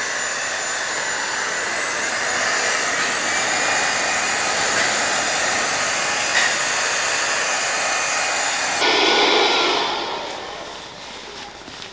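Ryobi cordless hand blower running steadily, a rush of air with a faint whine, blowing over a freshly wiped, primed tube frame to dry off wax and grease remover before painting. It stops about nine seconds in.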